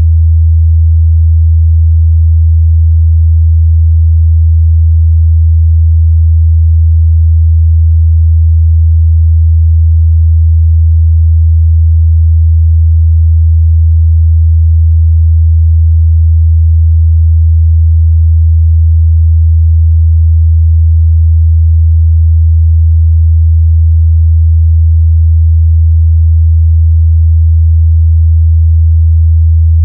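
Steady 81 Hz sine-wave test tone, a low constant hum that holds the same pitch and loudness, used to check the bass response of speakers and headphones.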